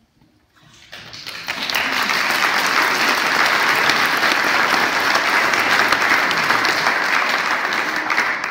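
Audience applauding: the clapping starts about a second in, swells to a steady, dense ovation and begins to die away at the very end.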